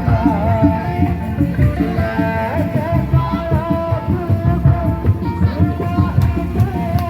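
Kuda lumping folk music: drums beating a quick, busy rhythm under an ornamented, wavering melody.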